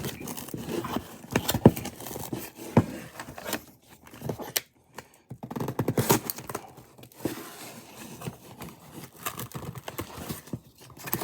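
Shipping-box packaging being handled and torn open: irregular scraping, tearing and crinkling with sharp clicks, and a brief pause about halfway through.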